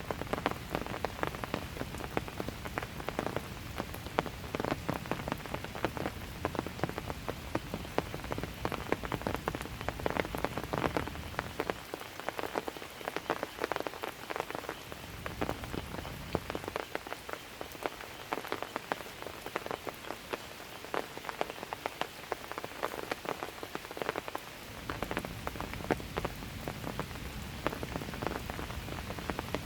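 Steady light rain falling on a walkway, with many separate drops tapping over an even hiss. A low rumble underneath drops away twice for several seconds.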